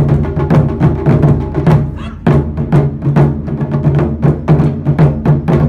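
Japanese taiko ensemble playing: barrel-shaped nagado-daiko and a large o-daiko struck with wooden bachi in quick, dense strokes, with sharp clicking hits mixed in. The drumming briefly drops off about two seconds in, then comes back in full.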